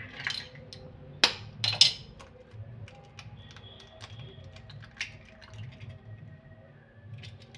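Eggs tapped and cracked against the rim of a stainless-steel tumbler and broken into it: a few sharp clinks and cracks, the loudest a little over a second in and just before two seconds, another about five seconds in.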